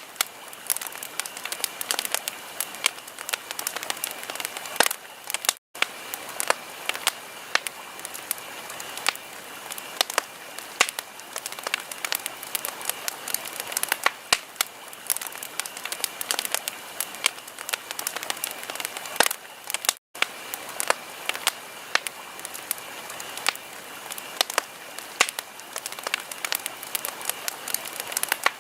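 Wood fire crackling in a fireplace: a dense, irregular run of pops and snaps over a soft steady hiss. The sound drops out for an instant twice, about six seconds in and about twenty seconds in.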